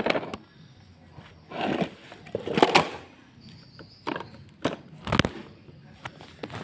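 Handling noise from a baby grabbing and tumbling a phone while it records: irregular scrapes, rubs and knocks of the phone against cloth and hands, with the loudest scrapes about two to three seconds in.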